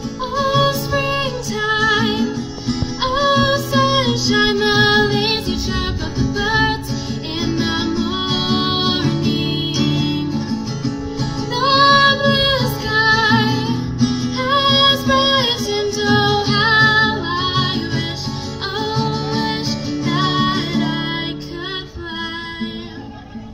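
A woman singing solo with her own acoustic guitar, in sung phrases with held notes over the strummed chords, heard through a stage sound system.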